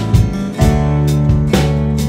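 Background music with a steady beat, its chords changing about half a second in.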